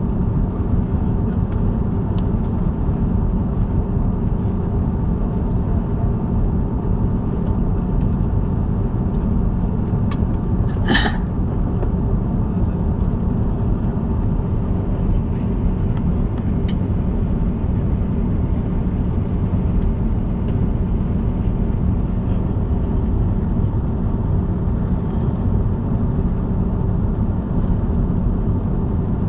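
Steady cabin noise inside an Airbus A330-200 in flight: a constant low rumble of engines and airflow with a faint steady hum. One short sharp click sounds about eleven seconds in.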